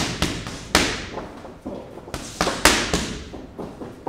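Gloved punches landing in a boxing gym: a string of irregular thuds and slaps, each trailing off in the echo of a large hall.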